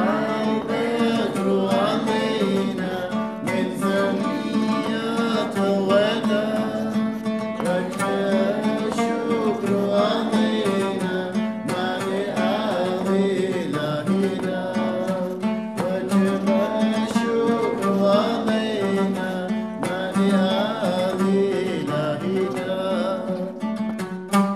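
Music: a wavering melodic voice over plucked strings and a steady low drone.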